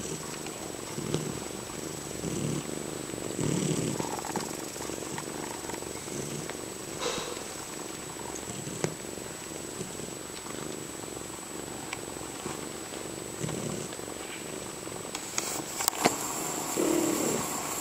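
Domestic cats purring close up, a steady pulsing rumble, with a few light clicks near the end.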